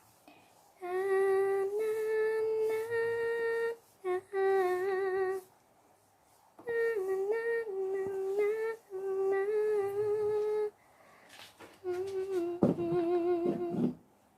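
A woman humming a tune with her mouth closed, in several short phrases with brief pauses between them. A few light knocks sound during the last phrase.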